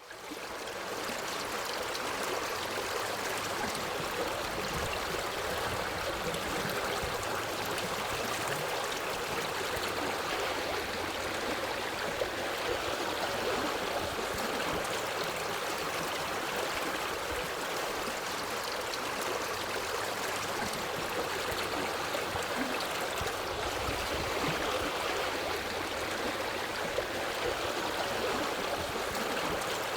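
Forest stream flowing over rocks, a steady babbling rush of water. The sound drops out briefly at the very start and fades back in over about a second, like a loop point in the recording.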